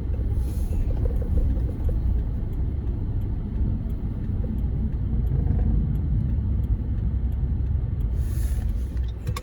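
Steady low rumble of a car heard from inside the cabin, with a short hiss near the end.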